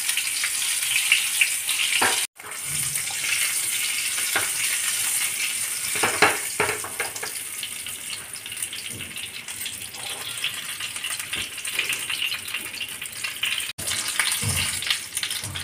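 Stuffed whole brinjals sizzling and crackling in hot mustard oil in a frying pan, with a couple of brief knocks about six seconds in.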